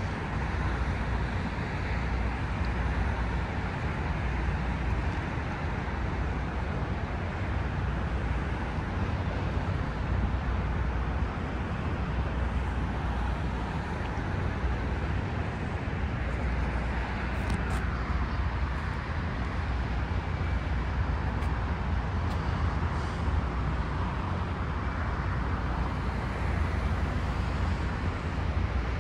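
A steady, even roar of distant engine noise, with a heavy low rumble of wind on the microphone. It swells slightly a little past the middle.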